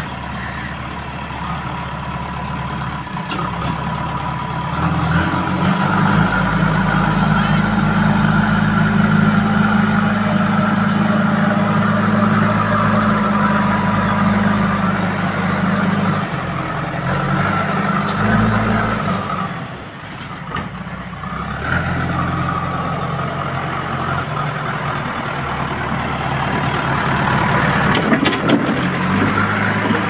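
JCB 3DX backhoe loader's four-cylinder diesel engine running as the loader bucket works, its engine speed stepping up and down. It picks up about five seconds in, drops briefly around two-thirds of the way through, then settles back into a steady run.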